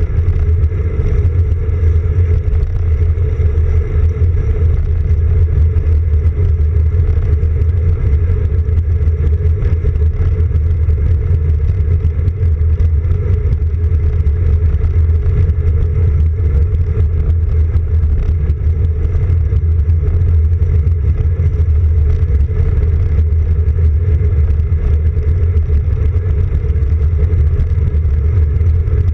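Steady low rumble of wind and road vibration picked up by a camera mounted on a road bike's handlebars while riding along a paved path.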